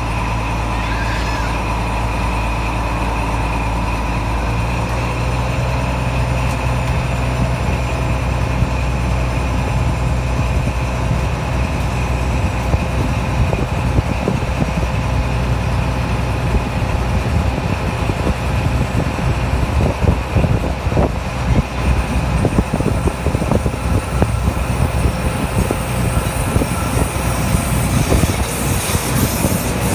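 Diesel locomotive engine running steadily as the train pulls away and gathers speed. From about halfway on, the wheels clatter more and more over the rail joints.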